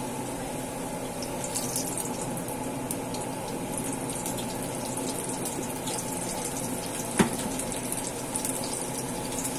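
Sweet corn and dill pakoras deep-frying in hot oil: a steady sizzle and bubbling, with one sharp click about seven seconds in.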